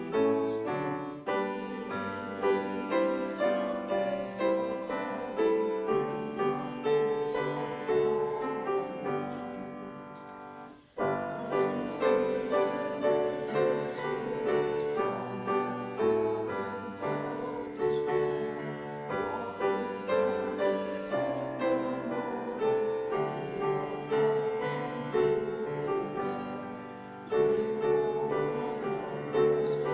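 Piano playing hymn chords, accompanying a congregation singing a hymn, with a short break about eleven seconds in before the music starts again.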